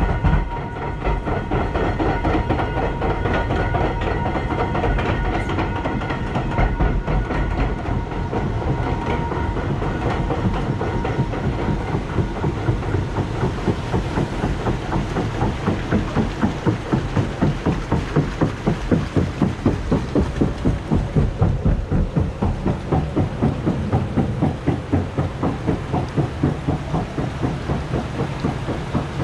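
Raft-ride lift conveyor clacking as the raft rides over its rollers, an even rhythm of about three to four clacks a second that grows loudest a little past the middle. A steady high whine runs alongside at first and fades out about a third of the way through.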